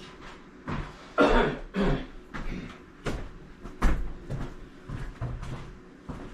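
A person coughs twice, about a second in, followed by scattered knocks and clicks as tools and wire are handled while fishing wire through a wall.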